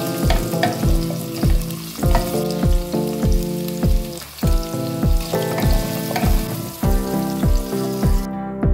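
Cubed potatoes and carrots frying in hot oil, a steady sizzle, stirred with a wooden spatula. The sizzle drops away near the end as the vegetables are scooped out. Background music with a steady beat plays over it.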